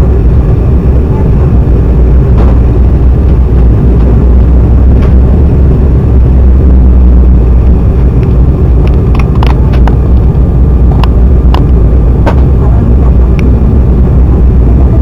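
Steady, loud low rumble of an Embraer E195 jet heard inside the passenger cabin, engine and airflow noise. A few sharp clicks and rattles come in the second half.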